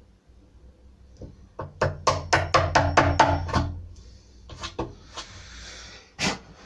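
A wood chisel being struck to chop a recess into a door: a quick run of about eight blows, then a few single blows, with a short scraping hiss between them.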